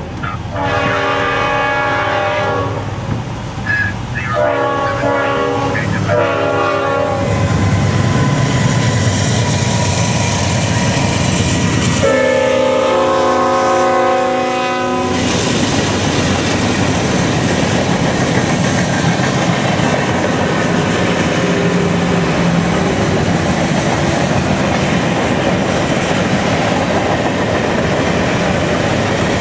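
CSX diesel freight locomotives sounding their horn for a grade crossing: several blasts in the first seven seconds, then a louder, longer blast about twelve seconds in as they pass. After that comes the steady rumble and wheel clatter of freight cars rolling by.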